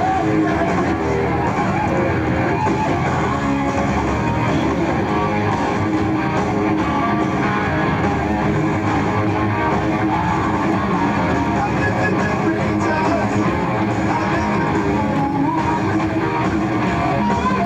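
Heavy metal band playing live, with distorted electric guitar over bass and drums at a steady high level, recorded from among the audience in an arena.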